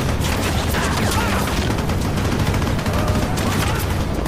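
Film soundtrack of rapid, continuous automatic rifle fire, with many shots packed closely together.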